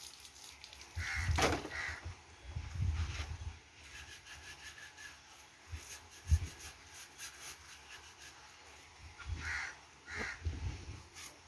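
Crows cawing outdoors: two caws about a second in and two more near the end. A dull knock about six seconds in.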